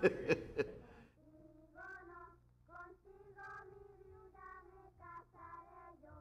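A few sharp clicks in the first second, then a child's voice singing a slow tune faintly, in short phrases with held notes.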